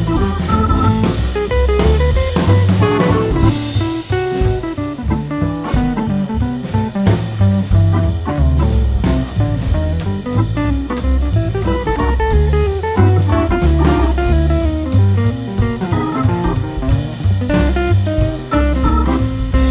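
Background music: a guitar-led tune with bass and drums keeping a steady beat.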